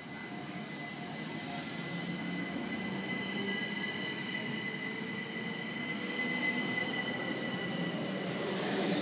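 Southern Class 377 Electrostar electric multiple unit accelerating away from a station as it passes close by. Its traction equipment whines with steady high tones over wheel-on-rail rumble, a lower tone slowly rising as it gathers speed, and it grows louder throughout, with a burst of hiss near the end.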